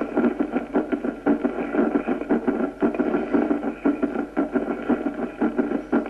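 Recorded heart sounds from auscultation demonstrating a fourth heart sound (S4), a low-pitched presystolic sound just before the first heart sound, the sign of a ventricle that does not dilate well, over heavy background noise.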